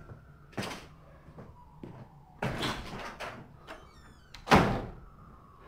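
A room door being handled, opened and shut, with clicks and rattles from the handle and latch. The loudest bang, the door closing, comes about four and a half seconds in.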